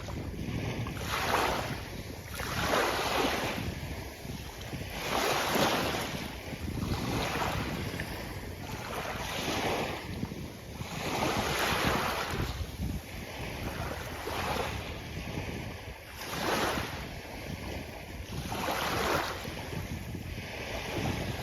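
Sea waves breaking and washing up on a beach, surging and falling back every few seconds over a steady low rumble.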